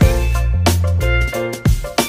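Background music with drums and a bass line.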